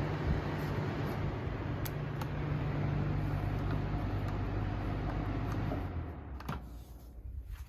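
Box fans, a 2001 Lasko 3780 and a GE 106620, running on high: a steady rush of air with a low motor hum. About six seconds in they are switched off with a click, and the sound fades away as the blades spin down.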